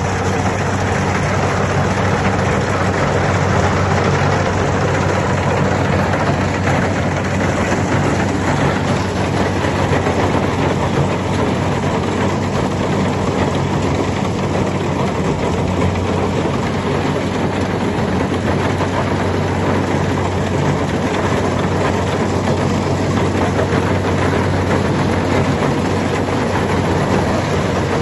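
Kubota rice combine harvester's diesel engine and machinery running steadily under load, a loud, even mechanical drone with a constant low hum.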